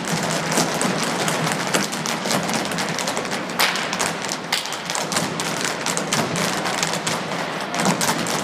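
Irish dance hard shoes of a group of dancers striking a stage floor together with no music: a dense, fast clatter of taps and stamps.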